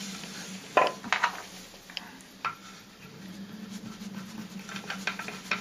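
Polished cherrywood toy parts knocking and clicking together as the towing eyes are fitted to a wooden chassis by hand. There are a few sharp knocks in the first two and a half seconds, then a run of lighter clicks near the end.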